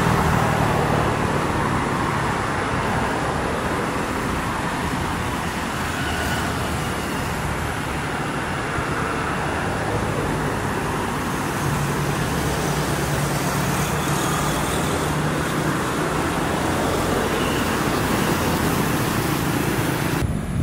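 Steady roar of a Boeing 747 freighter's jet engines at takeoff power, heard from a distance during its takeoff roll and lift-off, mixed with the noise of cars passing on a road close by.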